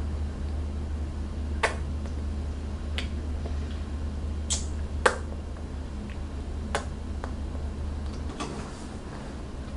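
About six sharp clicks and smacks, spaced irregularly, from spoon-feeding a baby, over a steady low hum.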